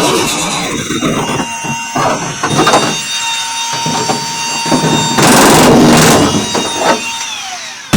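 Battery power tool cutting through van sheet-metal panel, its motor whine and rasping cut running steadily, then the whine dropping in pitch as the motor winds down near the end; a sharp knock at the very end.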